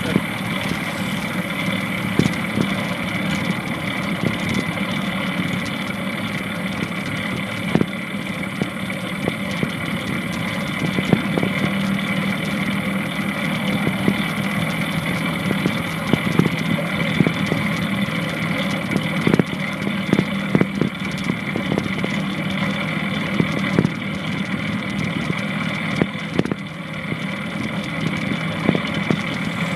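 Longboard wheels rolling on pavement: a steady hum with frequent short clicks and knocks.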